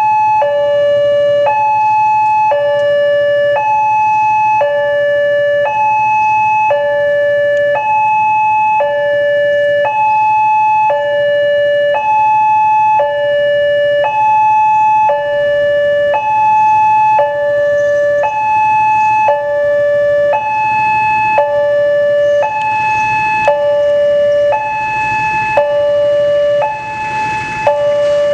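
Indonesian railway level-crossing warning alarm sounding a steady two-tone electronic alternation, a lower and a higher tone each lasting about two-thirds of a second, over and over: the crossing is warning of an approaching train. A rushing noise builds beneath it in the last few seconds.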